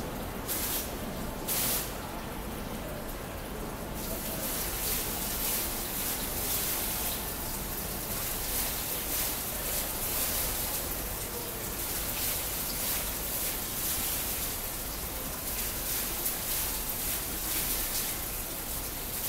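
Digital water-curtain fountain: rows of falling water drops, released to draw letters and shapes, splashing steadily into the fountain's basin as a patter like heavy rain. The splashing thins out briefly about two seconds in and picks up again about four seconds in.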